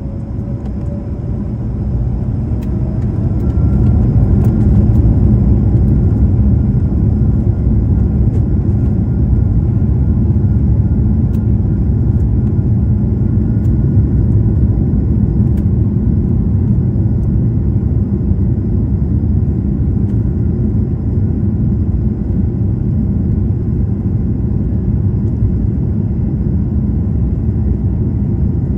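Airbus A220-300's Pratt & Whitney PW1500G geared turbofans heard from inside the cabin, spooling up to takeoff thrust: a rising whine and a rumble that grows louder over the first few seconds, then holds loud and steady as the jet accelerates down the runway on its takeoff roll.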